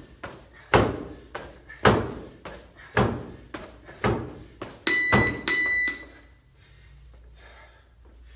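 Sneakered feet landing in quick succession as a man jumps up onto a low platform and back down to the rubber gym floor, about two landings a second, alternating louder and softer thuds. About five seconds in, the jumping stops and an electronic interval timer beeps twice, marking the end of the set.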